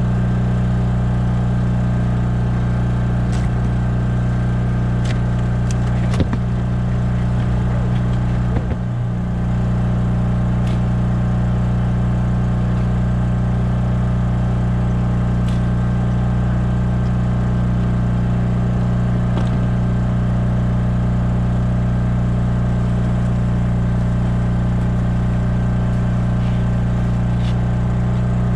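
Generator running at a steady, constant hum to power the boat's LED flood lights. A few sharp knocks of gear on the boat come through over it.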